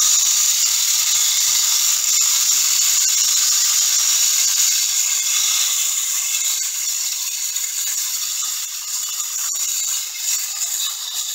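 Mini desktop vacuum cleaner switched on and running, a loud high-pitched whir with diamond-painting drills rattling around inside it as it sweeps them up.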